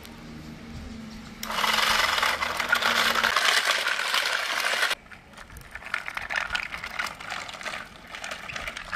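Small DC motor of a homemade plastic toy tuk-tuk whirring through its plastic gear, then a loud clattering rattle as the toy's plastic body and wheels run over brick paving. The rattle drops off suddenly about five seconds in and carries on more quietly.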